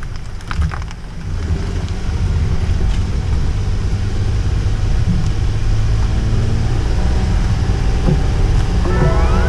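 A Honda N-VAN kei van driving, heard from inside the cabin: steady engine and road rumble that grows louder from about a second in as the van picks up speed. There are a few sharp clicks at the start.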